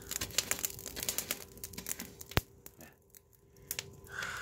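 Wood fire crackling and popping in the firebox of a wood-fired boiler, a dense run of irregular snaps with one sharp loud pop about two and a half seconds in, then quieter.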